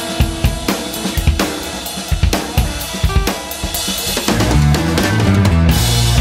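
Background rock music: a drum kit beat, with a heavy bass and guitar part coming in about four seconds in.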